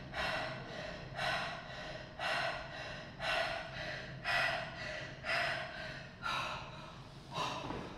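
A man breathing hard and fast after a heavy set of barbell squats, one loud gasping breath about every second as he recovers from the exertion.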